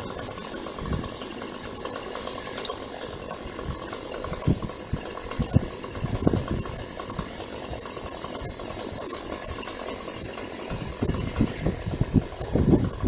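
An engine running steadily at idle on a tree-removal site, with several knocks and thumps mixed in, most of them near the end.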